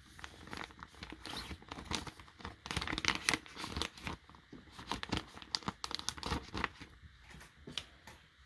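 Frosted plastic zip-top pouch crinkling and rustling as it is handled, opened and a metal jewelry hook is drawn out; an irregular run of crackles that thins out near the end.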